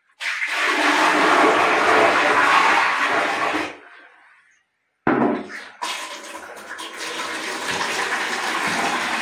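Indian squat toilet pan being flushed to wash out its P-trap: water rushes into the pan for about three and a half seconds and fades away. A second rush of water starts suddenly about five seconds in and runs on steadily.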